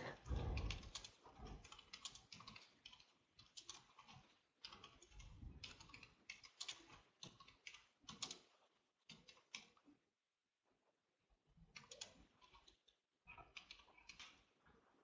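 Faint computer keyboard typing: irregular runs of quick keystrokes with a couple of short pauses, and a soft bump about half a second in.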